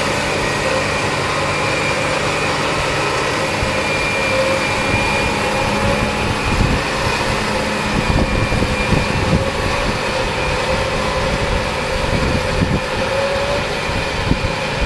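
Diesel engine of a tracked John Deere 8335R tractor running steadily under load while it pulls a PTO-driven Baselier rotary cultivator/ridger, a continuous drone with a steady whining tone over it. From about six seconds in, an uneven low rumble joins in.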